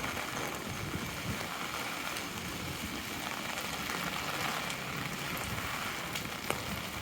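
Heavy rain falling steadily on an umbrella held overhead, with a few sharper drop ticks near the end.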